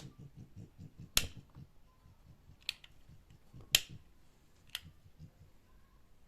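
Four sharp clicks spaced about a second apart, the one a little before four seconds in the loudest, in a quiet small room.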